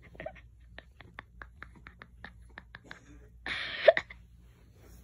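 A person's stifled laughter: a quick run of small clicks, about six a second, then a loud breathy gasp about three and a half seconds in.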